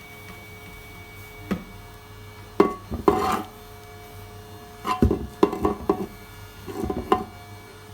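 Homemade 12 V IGBT electric fishing inverter being fired into a salt-water test load in short goes: about four rough, noisy bursts over a steady faint hum.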